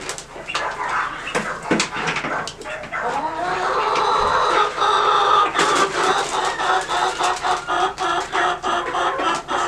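Chickens clucking and calling over one another, and from about halfway through a rapid run of repeated clucks at about three a second.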